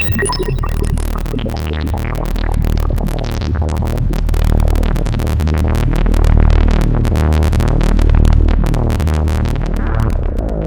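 Moog Source monophonic analog synthesizer playing a deep, sustained bass with a dense, buzzing, shifting upper texture. Right at the end it gives way to plainer separate notes.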